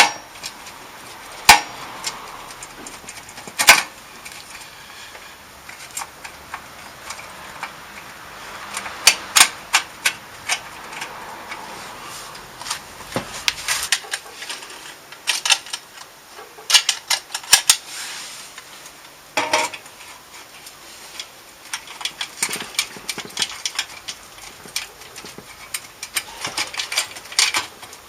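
Hand tools and metal exhaust parts clinking and knocking irregularly while a motorcycle muffler is worked on, with two sharper knocks in the first four seconds.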